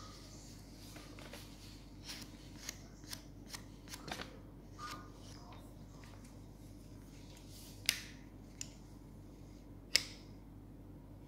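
Sheet of brown kraft paper (80 gsm) rustling and crinkling as it is handled, followed by a few sharp clicks near the end. The loudest click comes as a digital thickness gauge's anvil snaps shut on the paper.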